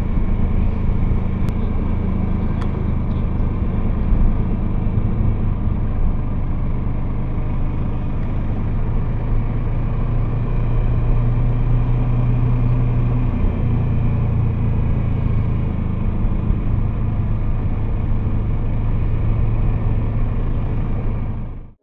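Kawasaki Versys 650's parallel-twin engine running steadily under load while riding up a steep hill, with wind rush over the helmet camera. The engine note shifts a little over halfway through.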